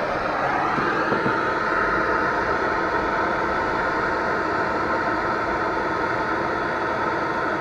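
Electric heat gun switched on with a click, its fan motor spinning up over about a second and then running steadily while it heats a battery cable terminal to melt solder.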